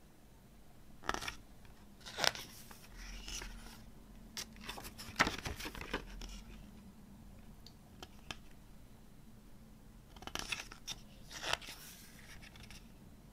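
Pages of a glossy CD booklet being turned by hand: a series of short papery rustles and flicks, bunched in the first half and again near the end.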